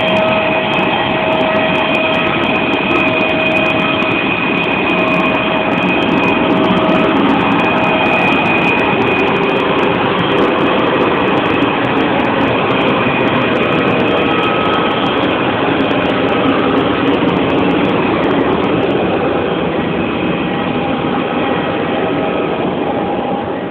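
Jet airliner engines heard from inside the passenger cabin: a loud, steady noise with a whine of several steady high tones. The whine fades out near the end and the noise drops a little.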